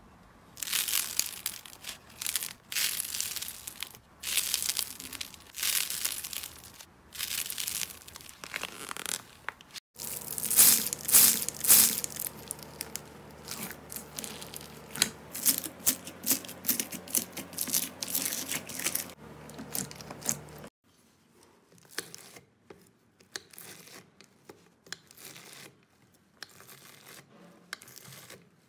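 Slime being worked by hand in short crackling, squelching bursts. It starts as cheese-shaped baked slime squeezed until it bursts, in repeated squeezes about a second apart. About ten seconds in it turns to a hand pressing into slime packed with foam beads, the loudest and densest crunching. From about two-thirds through it is a knife cutting through foam-bead slime, fainter and sparser crackles.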